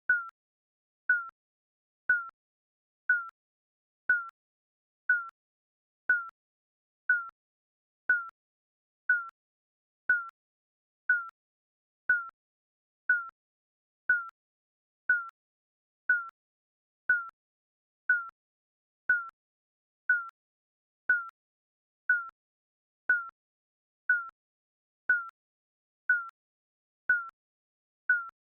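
Digital countdown timer beeps: a short electronic beep once every second, each a brief high tone that dips slightly in pitch and fades quickly.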